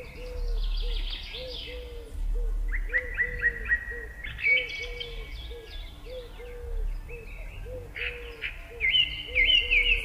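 Several wild birds singing: bursts of quick high chirps and trills, with a short low note repeated about twice a second underneath.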